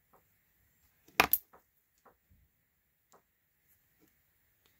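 Small clicks and taps of a slingshot ammo magnet, steel ball ammo and slingshot pouch being handled, with one sharp double click about a second in that fits the magnet snapping onto a steel ball.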